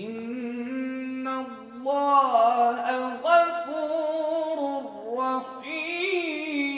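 Quran recitation by a male reciter in melodic tajwid style: a single voice holding long, drawn-out notes whose pitch winds up and down in ornamented turns. It comes in suddenly after a brief silence.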